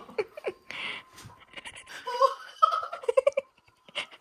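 Laughter in a run of short bursts that dies away about three and a half seconds in.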